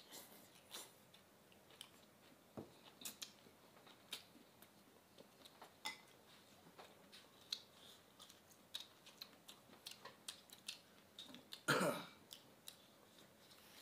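Two people eating a spicy boiled eel dish with chopsticks: quiet chewing and scattered small clicks of chopsticks and bowls, with one short, louder mouth or breath sound about twelve seconds in.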